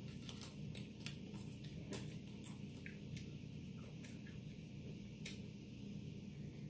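Quiet tabletop handling: faint scattered clicks and taps as food is picked at with fingers and a glass beer mug is lifted, over a low steady hum. One sharper click about five seconds in.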